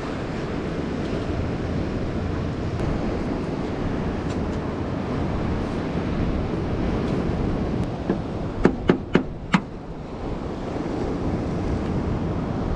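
Steady wind rushing over the microphone with ocean surf behind it. About nine seconds in come four sharp clicks in quick succession, within about a second.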